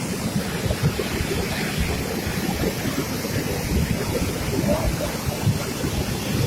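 Rushing floodwater of a swollen mountain river, a steady, heavy rumbling rush.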